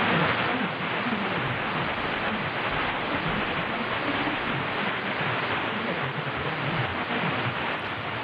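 Shortwave receiver audio from a Yaesu FTdx10 tuned to 9470 kHz: a steady hiss of static with a weak broadcast station barely coming through underneath. The listener takes the station for China National Radio 1.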